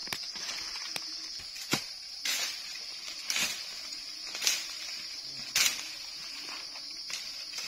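Footsteps pushing through forest undergrowth: about seven irregular crunches and rustles of dry leaves and stems, the loudest sounds, over a steady high-pitched drone of insects.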